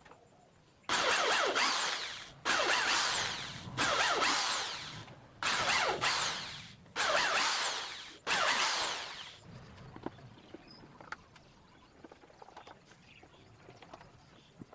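A power tool run in six short bursts in a row, each starting abruptly and then fading with a falling pitch as it winds down. A few faint clicks follow.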